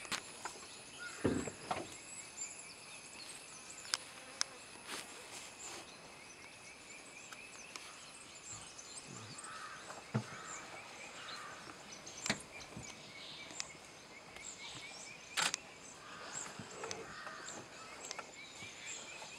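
Outdoor meadow ambience: steady insect trilling with many small bird chirps, broken by a handful of short, sharp snaps and crunches.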